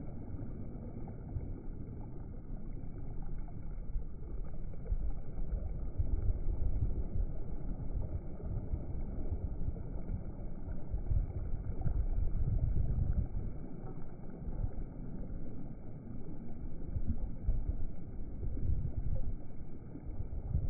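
Processed low rumbling noise that swells and eases every few seconds. It is heaviest at the bottom and cut off above the upper mids, with no distinct events.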